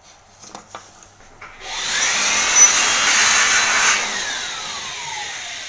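Electric air blower switched on about a second and a half in, running loudly with a high whine, then let go so its motor winds down in a slowly falling pitch. It is blowing old toner out of a laser toner cartridge's hopper. A few light plastic clicks from handling the cartridge come before it.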